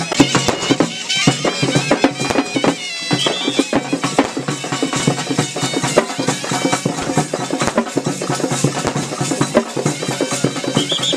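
Traditional Maharashtrian procession music: a large frame drum beaten with a stick in a fast, dense rhythm, with a shrill whistle or pipe warbling over it.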